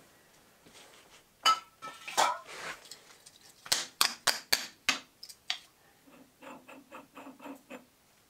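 Small wire brush scrubbing metal swarf off a stopped lathe chuck and a sprocket part: a couple of scrapes, several sharp metallic clicks, then a quick run of about eight short brush strokes near the end.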